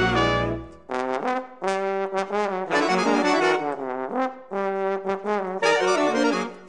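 Background music: an instrumental tune of short, separated notes.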